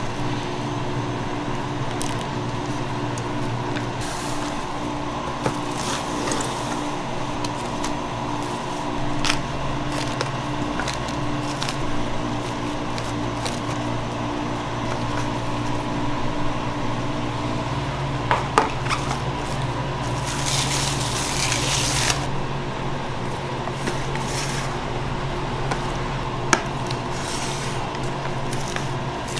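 Soft squelching of a thick fruit jelly mixture as it is poured into and worked in a metal tray, with cling film crinkling and a spatula lifting the set jelly, over a steady low hum. A louder hissy rustle lasts about two seconds, roughly two-thirds of the way through.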